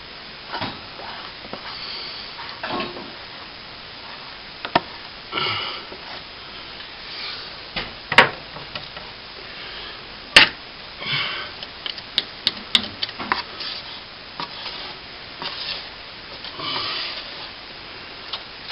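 A plastering tool scraping and shaving set cornice cement to shape it flat, in short irregular strokes, with a few sharp taps of the tool against the plaster.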